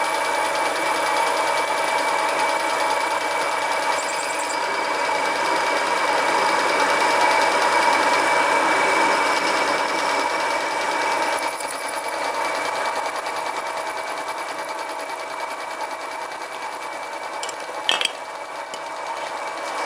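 Homemade mini lathe running with a steady whine, its 750 W single-phase motor turning the chuck while a 4 mm drill bores into hard steel. A single sharp click near the end.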